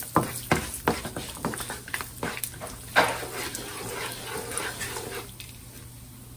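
Cashews frying in ghee in a nonstick kadai, sizzling, while a wooden spatula stirs them with repeated scrapes and knocks against the pan; one sharper knock comes about three seconds in, and the stirring quiets near the end.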